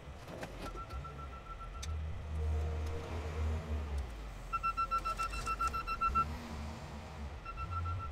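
Wheel loader's diesel engine running under load as it lifts and sets down a crushed car bundle, with its backup alarm beeping rapidly in spells. There are a few sharp metal clanks in the first couple of seconds.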